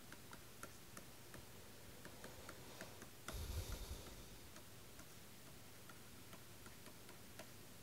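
Faint, irregular ticks of a pen tip tapping and stroking on a writing surface while handwriting an equation. There is a brief, louder rustle about three seconds in.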